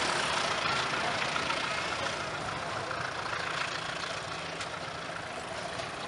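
Passenger train running on the rails away from the listener, a steady rushing rail-and-wheel noise with a few faint clicks, fading steadily as it recedes.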